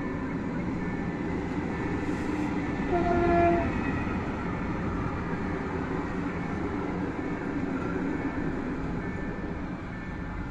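Freight train of tank wagons hauled by an electric locomotive rolling past a level crossing: a steady rumble of wheels on rail, with a short horn blast about three seconds in. The crossing's warning signal sounds a steady tone underneath.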